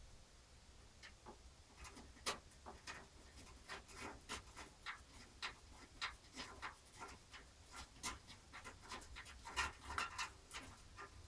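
Irregular small clicks and taps of metal and plastic computer parts and screws being handled and fitted into a PC case, a few per second, starting about a second in.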